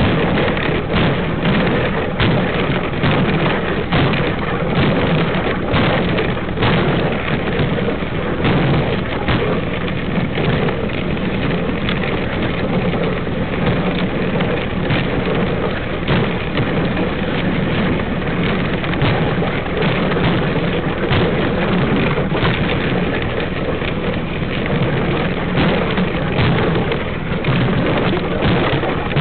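A dog sled running over a packed snow trail: the runners scrape steadily across the snow, and many small knocks and rattles come from the sled as it bumps along.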